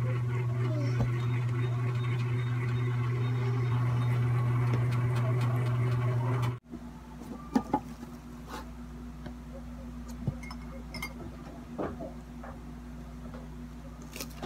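A loud, steady low hum that cuts off abruptly about six and a half seconds in, followed by the quieter crinkle of a plastic bread bag and small clicks as slices of bread are handled and eaten.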